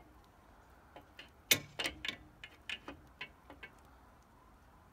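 Irregular sharp clicks and knocks as a wrench is fitted and worked on the swivel lock of a homemade truck-mounted crane. The loudest knock comes about a second and a half in, and the clicks die away after about three and a half seconds.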